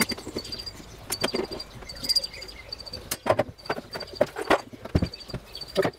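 Irregular metallic clicks and knocks from an adjustable wrench and grinder parts being handled while the feeder is unscrewed from the grinder's motor axle, with a faint high chirping repeating behind them.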